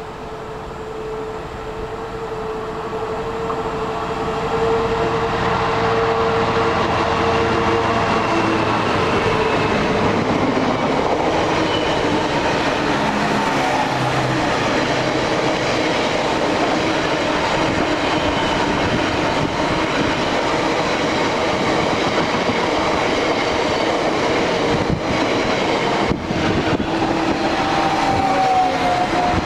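Freight train passing through: the sound grows for the first few seconds as it approaches, then the wagons roll by with a steady rumble and their wheels clacking over the rails.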